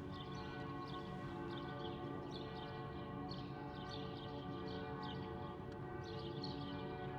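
Large tower bell of the Old Town Hall ringing, a steady hum of many overlapping tones that does not die away.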